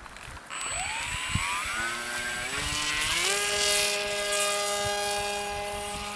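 Homemade radio-controlled autogyro's motor and propeller whining up in pitch in steps as it is throttled up for launch, then holding a steady whine in flight and cutting off suddenly near the end.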